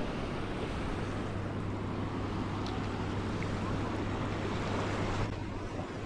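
Small waves washing onto a sandy beach, with wind buffeting the microphone. A steady low hum runs underneath and stops suddenly about five seconds in, where the wash also drops.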